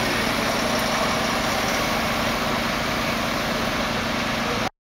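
Volvo truck's diesel engine running at low revs as the truck moves slowly. The sound cuts off abruptly near the end.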